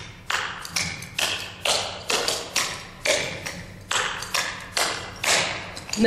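Clogging shoes' metal taps striking a wooden dance floor in a run of clogging steps: sharp taps two or three a second, some in quick pairs, each ringing briefly in the hall.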